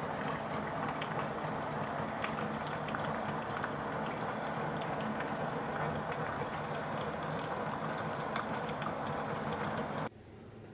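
Heavy rain falling steadily, with many separate drop hits ticking through it; the sound cuts off abruptly near the end.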